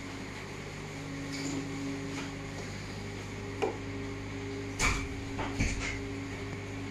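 Steady machinery hum inside a ship's wheelhouse, with a few sharp knocks: one about three and a half seconds in, and a louder cluster around five seconds.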